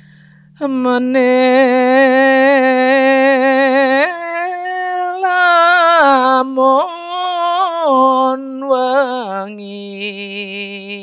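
A single voice singing an unaccompanied, slow chant in long held notes with a heavy vibrato. It comes in about half a second in, steps up in pitch about four seconds in, and settles on a lower note near the end.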